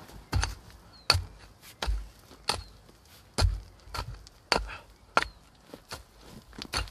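Hand hoe chopping into hillside soil in a steady rhythm, about ten strikes, roughly one every two-thirds of a second.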